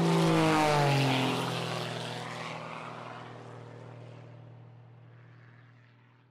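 Airplane flying past: its engine drone is loudest about half a second in, drops in pitch as it passes, then fades away over several seconds.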